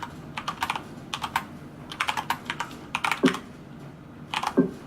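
Typing on a Corsair K70 LUX RGB mechanical keyboard: quick runs of keystrokes broken by short pauses.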